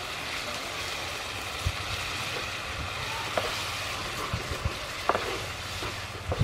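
Shrimp and sauce sizzling in a nonstick pan just after water is poured in, with a wooden spatula stirring and knocking lightly against the pan a few times.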